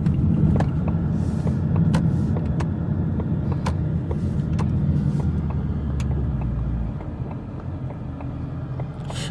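Mustang GT's V8 engine running at low speed in traffic, heard from inside the cabin as a steady low hum, with a few scattered sharp clicks. It gets quieter about seven seconds in.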